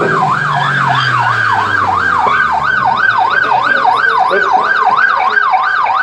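Police car siren wailing in a fast yelp, its pitch sweeping up and down about three times a second.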